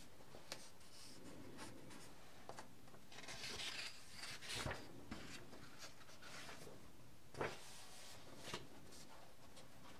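Faint rustling and rubbing of book pages being handled, with a few soft taps, the strongest near the middle of the last half.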